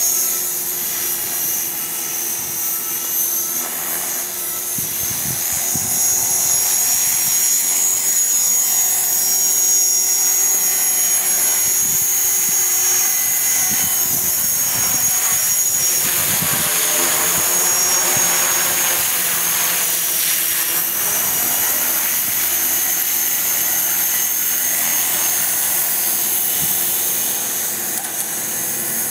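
KDS 450SV electric RC helicopter in flight, a steady high-pitched whine from its motor and rotor head. Gusts of wind buffet the microphone, strongest about four seconds in and again midway.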